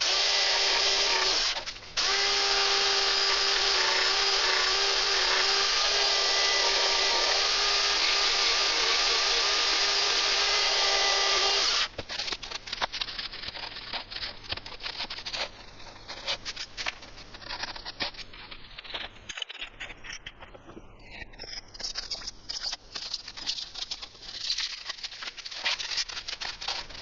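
Small handheld electric power file running steadily on EPP foam for about twelve seconds, with a brief stop about two seconds in. After it cuts off, irregular quieter scraping and clicking follow.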